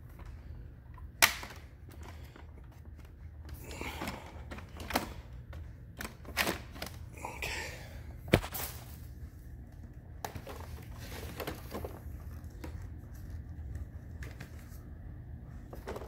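Hoover React Powered Reach vacuum being handled as its wand is released: a few sharp plastic clicks and knocks, the loudest about a second in and another near the middle, with some rustling over a low steady hum.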